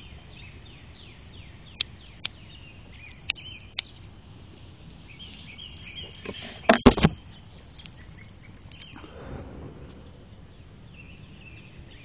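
Outdoor background of steady, rapidly repeated high chirping, broken by a few sharp clicks about two to four seconds in and a short burst of loud handling noise about seven seconds in.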